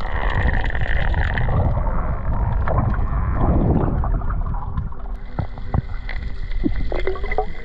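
Muffled rushing and gurgling of water around a camera held underwater while a diver swims over a reef, with scattered sharp clicks in the second half.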